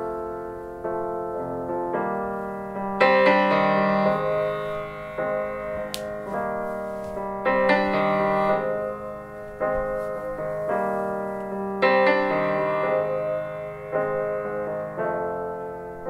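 Solo piano music played back through a homemade wooden Bluetooth speaker with two small woofers and a tweeter. Struck notes ring and die away, with louder chords about every four to five seconds.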